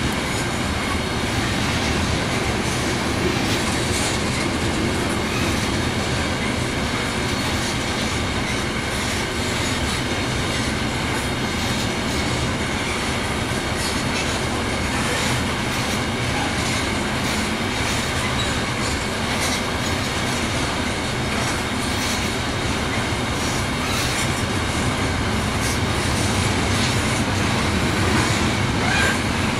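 Long freight train rolling past close by: a steady rumble of steel wheels on rail with rapid clicking from the rail joints and a faint high squeal from the wheels.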